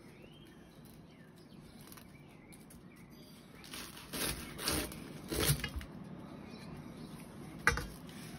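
A knife cutting into the crisp baked lavash crust of a shah plov dome, crackling and crunching in a short cluster about halfway through. A single sharp click follows near the end.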